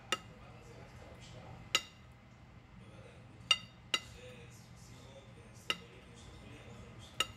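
Metal spoon clinking against the rim of a round baking pan as oil and butter are scooped from the edge: six sharp, ringing clinks spaced irregularly, two of them close together about halfway through.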